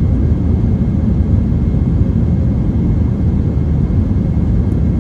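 Airliner cabin noise in flight: a loud, steady low rumble of engines and rushing air.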